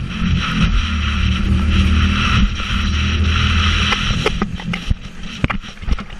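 Sea-Doo jet ski engine running steadily under a loud rush of water and wind. About four seconds in the engine eases off and several sharp knocks follow.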